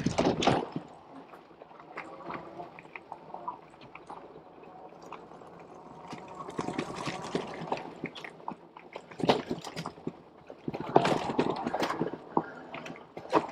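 Fat tires of an e-bike rolling over a wet, muddy dirt trail, with irregular clicks and knocks from the ride. Noisier rough stretches come about six to eight seconds in and again from about nine to thirteen seconds.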